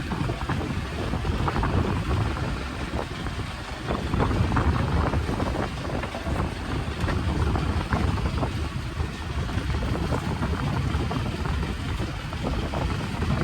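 Fishing boat's engine running steadily under way at sea, a low rumble with wind buffeting the microphone.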